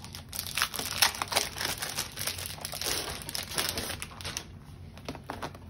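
Packaging of a planner accessory pack crinkling and rustling as it is opened and its contents handled, busy for the first four and a half seconds, then a few soft handling sounds.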